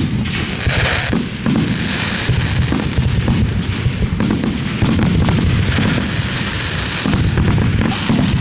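Fireworks display going off in quick succession: dense, overlapping booms and bangs with crackling, steady and loud with no gaps.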